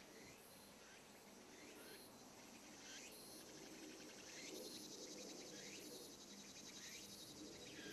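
Faint insects chirring in the forest: a steady high trill that grows a little louder about halfway through, with a short call repeating about once a second.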